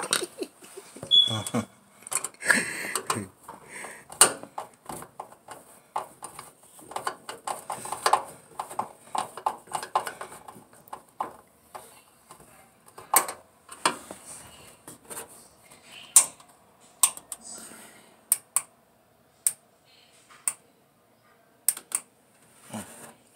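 Scattered clicks, taps and light knocks of a screw, hand tools and small dryer parts being handled while a new door switch support is screwed into place, a few sharper clicks coming in the second half.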